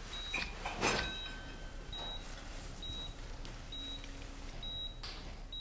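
Operating-room patient monitor beeping, a short high tone about once a second, with a rustle of cloth about a second in and another near the end.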